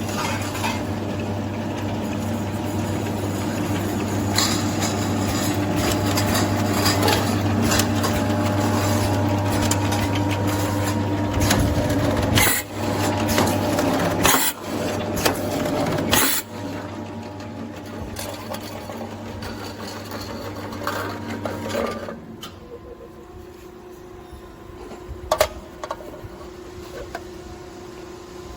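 Tinplate can flanging and seaming machine running: a steady motor hum with many metallic clicks and knocks, and several loud clanks in the middle. About three quarters of the way in the hum drops away and the noise falls to a quieter level with occasional clicks.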